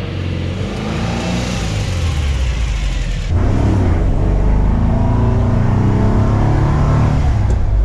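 1968 VW Bus's air-cooled flat-four engine pulling the bus along, heard from inside the cab. It jumps louder about three seconds in, its note climbs as it accelerates, and it falls near the end.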